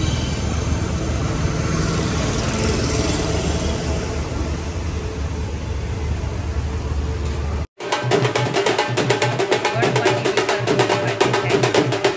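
Street traffic noise, a steady low rumble, for the first seven or eight seconds. Then, after a sudden cut, loud rapid drumming with music from a Ganesh immersion procession.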